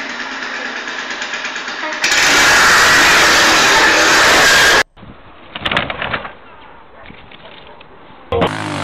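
Small motor scooter engine running, then much louder for about three seconds as the scooter lurches and tips over. It cuts off abruptly, followed by a quieter stretch with a few knocks.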